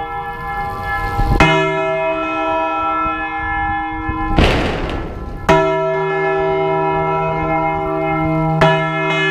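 A large church bell swinging full circle (Spanish volteo ringing), its clapper striking about three times, each stroke renewing a long, many-toned ringing with a deep hum beneath. Just before the middle stroke there is a rush of noise about a second long.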